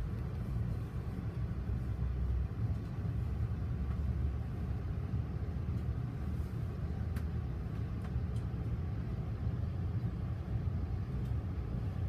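Steady low rumble inside a commuter rail coach, with a few faint clicks.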